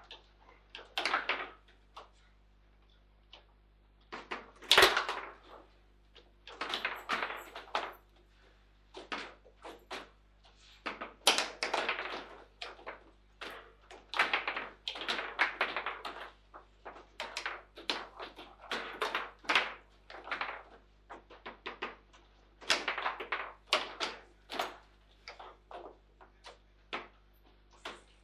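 Table football in play: quick, irregular clusters of knocks and clacks from the ball being struck by the figures on the rods and bouncing off the table, with one sharp, loud bang about five seconds in.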